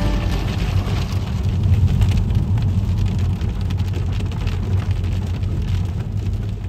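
Heavy rain pattering on a car's windscreen and roof, heard from inside the moving car over a steady low road rumble, with many small drop ticks.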